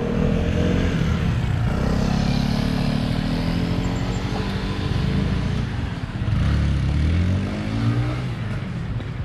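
Engine of a passing motor vehicle, running loud, its pitch falling slightly and then rising again as it accelerates.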